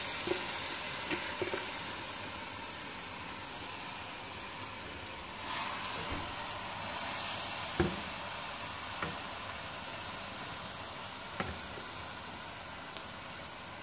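Raw long-grain rice sizzling in hot oil and tomato paste in a metal pot as it is stirred with a wooden spoon, a steady frying hiss. The spoon knocks against the pot a couple of times, about eight seconds in and again near the end.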